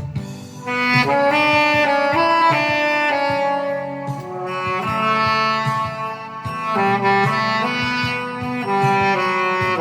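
Saxophone playing the melody of a slow Korean song in long held notes over a backing track, a new phrase coming in about a second in after a brief breath.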